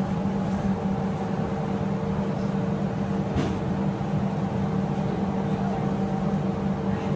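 Steady machine hum with a low drone and a higher whine that holds at one pitch, and a single faint click about three and a half seconds in.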